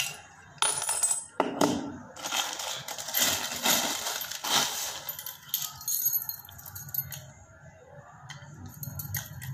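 Metal padlock and keys being handled: a run of sharp metallic clicks and rattles, with keys clinking and a key going into the lock. The clicks are densest in the first half and grow sparser later.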